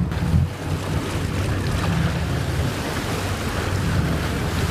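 Engine of a vessel on open water running steadily under the wash of churning water, with wind buffeting the microphone.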